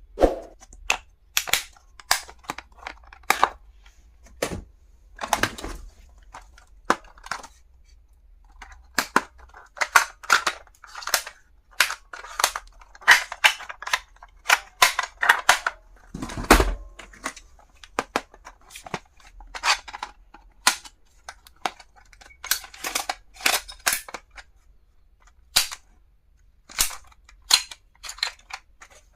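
Stationery items and their packaging being handled: many irregular sharp clicks, taps and rustles, several a second at times.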